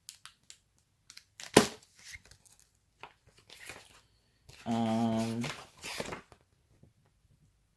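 Snack packaging being handled: scattered crinkles and clicks, with one loud, sharp rip about a second and a half in. A man gives a short hummed 'mmm' past the middle.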